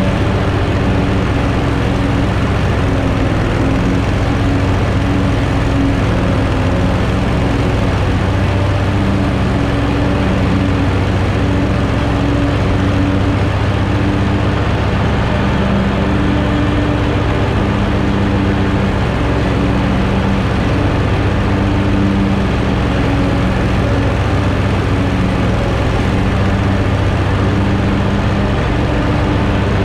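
Engine of a 2020 Hustler FasTrak 54-inch zero-turn mower running steadily while it cuts tall grass.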